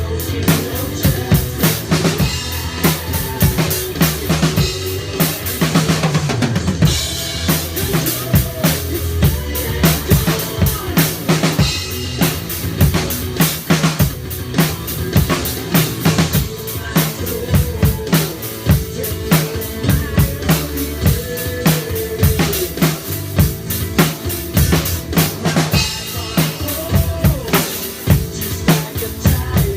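Drum kit played in a busy rock beat: kick drum, snare and cymbals struck densely and evenly, with a pitched bass line sounding underneath.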